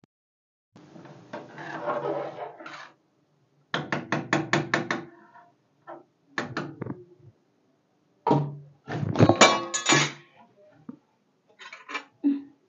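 Metal ladle stirring gravy in a metal kadai, scraping and knocking against the pan, with a quick run of about five taps a second after a few seconds and a louder clatter a little past the middle.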